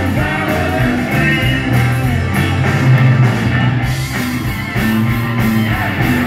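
Live rock band playing through a PA: electric guitars over a steady bass line and drums.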